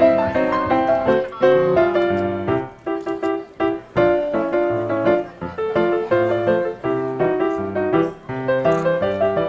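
Background piano music: a lively melody of quick notes over a bass line.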